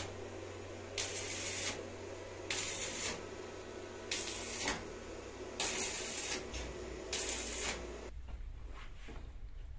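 Electric arc welding in short bursts: the arc crackles and hisses for about half a second to a second at a time, six times at roughly one-and-a-half-second intervals, stopping about eight seconds in. A low steady hum runs underneath.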